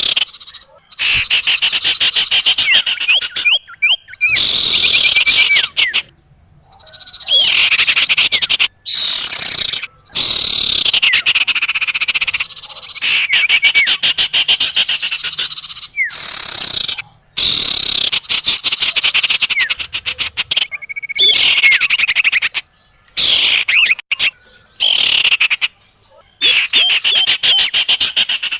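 Bird-lure recording of small songbirds, sirtu and common iora: loud, fast, high chattering trills in repeated bursts of a few seconds each, broken by short abrupt gaps, with quick up-slurred whistles here and there.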